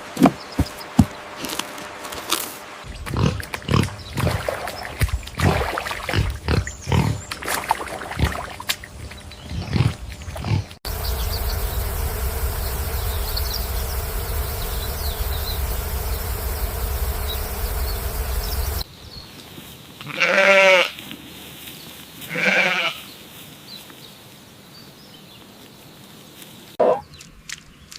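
A run of clicks and short scuffling bursts, then several seconds of steady noise with a low rumble that cuts off suddenly, then two loud, wavering animal cries about two seconds apart.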